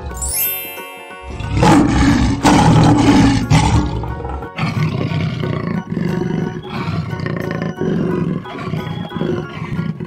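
Lion roar sound effects over background music, loud for a few seconds near the start; after about four and a half seconds only the rhythmic music goes on.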